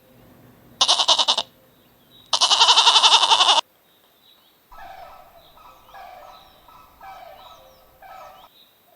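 An animal bleating: two loud, wavering calls, the second longer, followed by a run of fainter, shorter calls with small high chirps.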